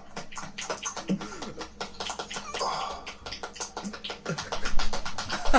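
Rapid, irregular wet squelching and slapping noises, a crude sound-effect recording played back as a prank.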